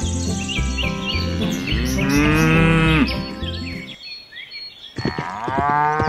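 Two long cow moos, the first about two seconds in and the second starting near the end, each rising and then falling in pitch. Under them run repeated high chirps and a steady low rhythmic background.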